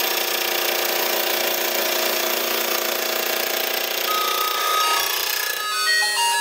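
Disc gear cutter on a milling spindle running and cutting teeth in a change-gear blank: a steady whine with cutting noise over it. Near the end the cutting noise drops away and a few clear tones step up and down in pitch.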